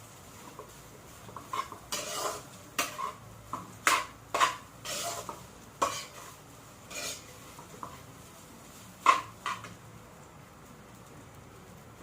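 A cooking utensil stirring and tossing rice in a frying pan: irregular scrapes and knocks against the pan, with light sizzling underneath. The clatter stops about ten seconds in.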